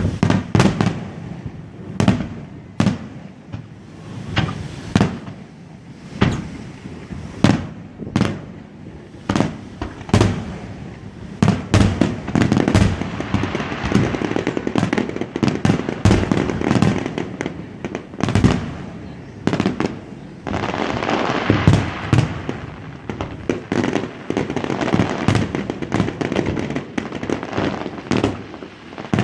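Fireworks display: a string of booming aerial shell bursts, coming faster about halfway through, then joined by a continuous crackling rain of bangs near the end.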